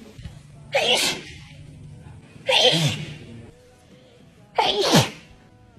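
A person sneezing three times, about two seconds apart: powerful, wet sneezes, each a loud sudden burst. The last trails off in a falling pitch.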